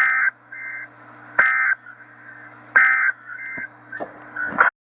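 Emergency Alert System end-of-message data bursts: three short, harsh two-tone digital squawks about a second and a half apart, marking the end of the warning message, with fainter bursts between them over a steady low hum. The audio cuts off suddenly near the end.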